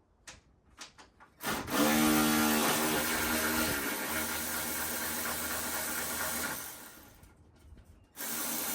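Handheld power tool, a drill or driver, running while backing out bolts. It makes one long run of about five seconds, then a short second burst near the end.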